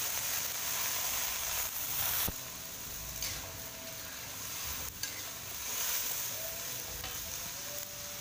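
Sliced cucumber, chillies and spices sizzling in a hot steel wok just after a splash of water goes into the oil, stirred with a metal spatula. The sizzle is loudest for the first two seconds, then drops suddenly and goes on more softly, with a couple of sharp spatula taps against the pan.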